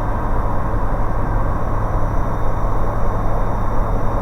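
Steady drone of a Bristell light aircraft's engine and propeller heard from inside the cockpit in flight.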